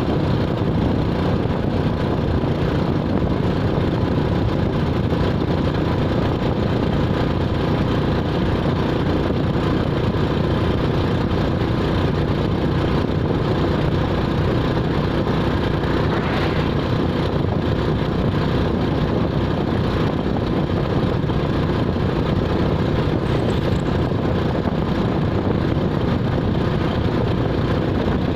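Steady vehicle engine and road noise, unchanging throughout.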